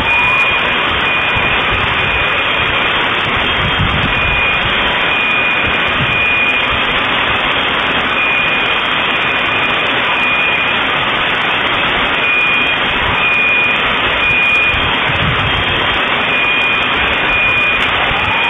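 Steady, loud rushing noise following a bomb blast. An electronic alarm beeps over it in short repeated high tones, and a rising alarm whoop sounds near the start and again near the end.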